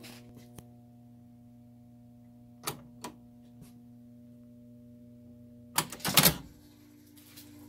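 Rowe AMI jukebox selector keys being pressed: two light clicks a little under three seconds in, then a louder cluster of clicks around six seconds as a number key is pushed down, over the machine's steady electrical hum. Just after the number key, the hum changes pitch.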